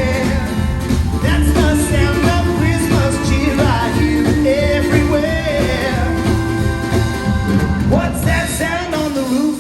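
Live rock and roll band playing: a lead melody over driving drums and bass.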